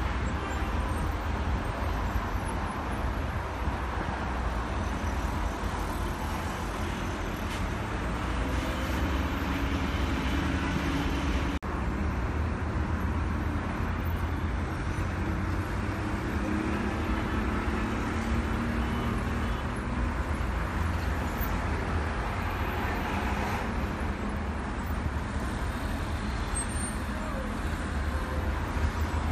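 Steady road traffic noise: car engines running past, with a deep low rumble underneath.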